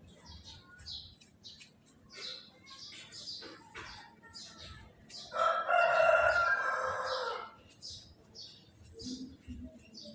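Short scraping strokes, about two a second, of a hand tool texturing the surface of a sculpted cement faux-rock wall. A rooster crows loudly once, for about two seconds, midway through.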